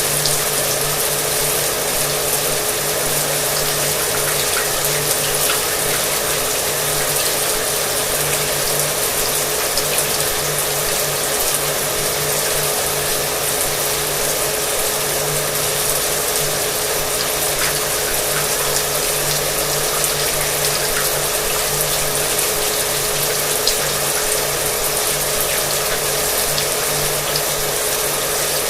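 Shower water spraying and splashing steadily, with a hair dryer running continuously underneath and adding a steady motor hum.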